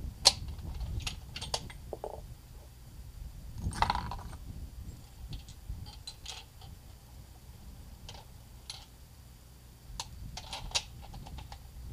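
Metallic clicks and clacks of a Remington 700 bolt-action rifle being handled, its bolt worked and a round loaded. The loudest clacks come near the start and about four seconds in, with another cluster of clicks near the end.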